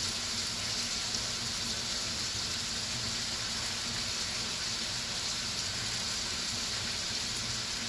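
Chicken and carrots frying in oil in a pan, with wet, freshly washed broccoli added: a steady sizzling hiss.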